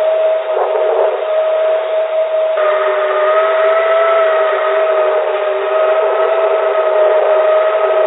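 Background noise of a very old cockpit voice recorder with no voices on it: a thin, telephone-like steady hiss with no bass or treble, and a steady hum tone under it. A second, higher hum tone joins about two and a half seconds in.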